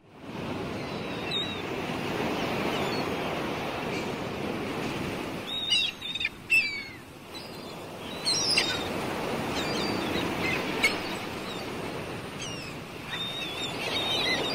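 Outdoor ambience: a steady surf-like rush that fades in at the start, with birds chirping in short bursts, several together about six seconds in and again around eight to nine seconds.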